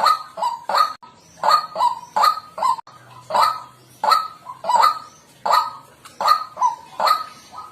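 White-breasted waterhen calling: a steady run of short, repeated call notes, about three a second.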